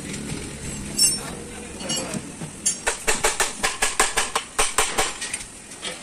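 Metal clicking and clinking of hand tools worked on a removed Ashok Leyland truck gearbox: two single clinks, then a quick run of about five clicks a second for a couple of seconds.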